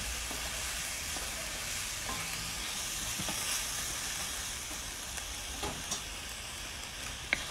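Marinated goat meat sizzling in hot mustard oil in a pot while it is stirred, a steady frying hiss at the bhuna stage when the meat is nearly browned. A few light clicks come in the second half.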